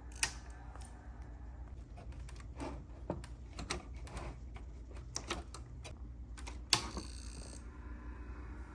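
Scattered small clicks and knocks of hands unplugging the old hard drive's cables inside a Macintosh Classic, with one louder click about seven seconds in followed by a brief hiss, over a low steady hum.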